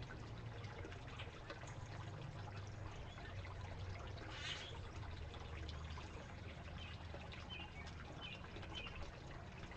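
Faint steady background hiss with a low hum, and a few faint, short, high bird chirps about halfway through and again near the end.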